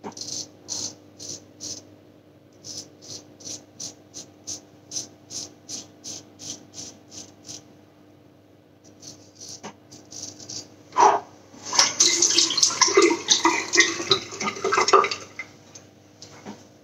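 Short, rapid scrapes of a Feather Artist kamisori-style straight razor with a wire-guarded blade cutting through lathered stubble, about three strokes a second. Near the end, a few seconds of running water, as from a tap.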